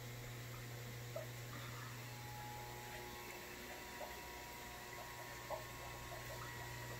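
Steady low electrical hum of mains-powered equipment, with a few faint ticks.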